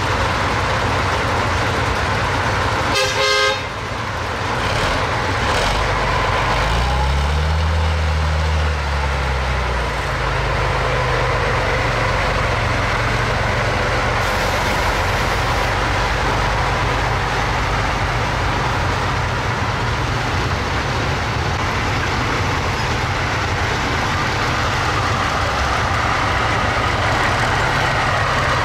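Heavy eight-wheeled military tractor truck's diesel engine running, with a short horn toot about three seconds in. Between about seven and nine seconds in the engine revs up and back down.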